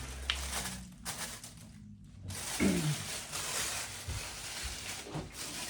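Rustling and rubbing of tissue and padding wrapped around statue pieces being handled, with a single click near the start.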